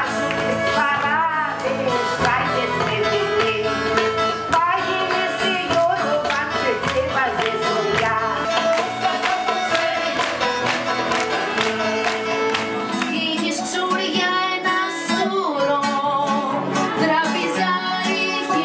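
Singing of a Greek folk song, accompanied by acoustic guitar and other plucked strings, running on without a break.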